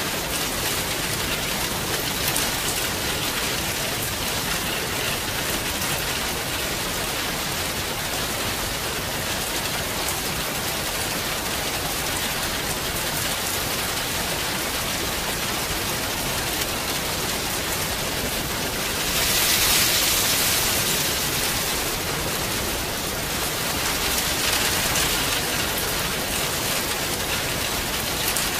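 Steady rain falling, a dense even hiss. It swells louder for a few seconds about two-thirds of the way through, then eases back.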